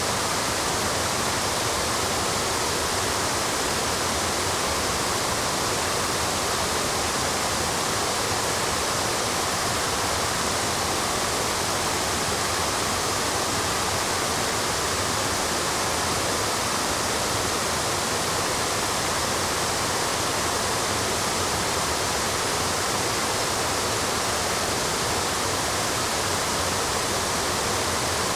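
Waterfall cascades rushing steadily over granite steps: an even, unbroken roar of falling water.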